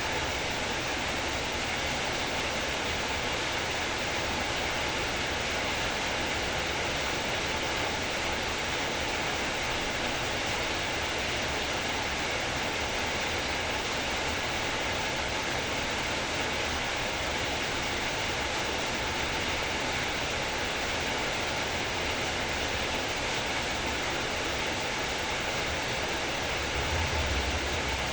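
Heavy rain falling steadily, an even hiss with no breaks. A low rumble swells in underneath near the end.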